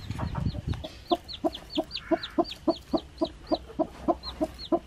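A newly hatched chick peeping steadily, about three short falling peeps a second, with the broody hen answering in low clucks at the same pace.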